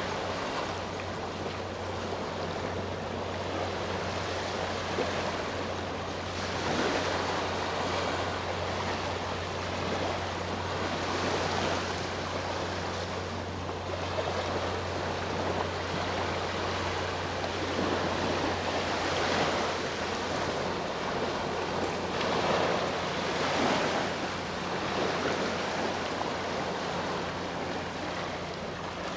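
Sea waves washing onto the shore, the surf swelling and easing every few seconds, over a steady low hum that fades in the latter part.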